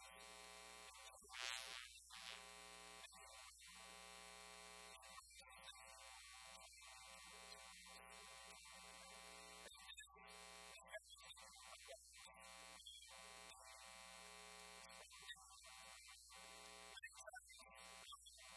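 Near silence except for a faint, steady electrical mains buzz with many even overtones. It drops out briefly many times over.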